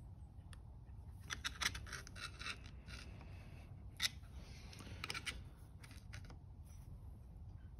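Flat-blade screwdriver tip scraping and clicking against metal engine parts as tabs are pressed tight: a run of scrapes and clicks a little over a second in, a sharp click about four seconds in, and another short cluster of clicks about a second later.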